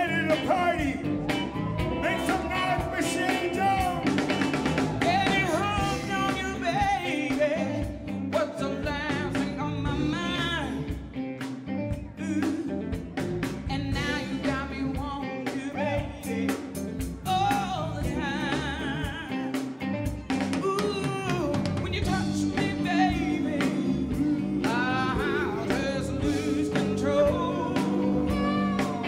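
Live rhythm and blues band playing: a woman singing lead over electric guitar, electric bass and a drum kit.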